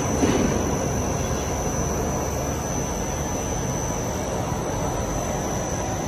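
Monofilament extrusion line running: a steady mechanical hum and hiss with a constant high whine.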